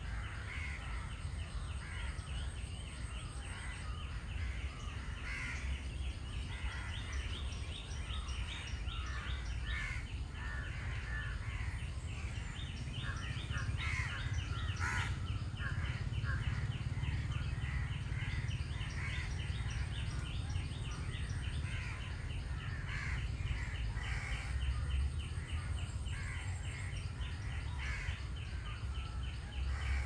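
Birds calling and chirping along a forest creek, crows cawing among them, with many short calls scattered throughout. A steady low rumble runs underneath.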